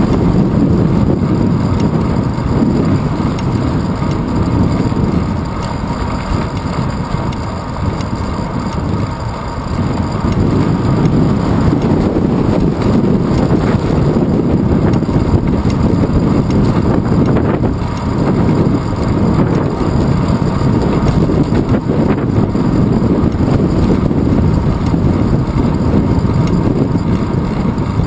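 Wind buffeting the microphone of a handlebar-mounted GoPro Hero 2 on a moving bicycle: a loud, steady low rumble that eases a little a few seconds in and again past the middle.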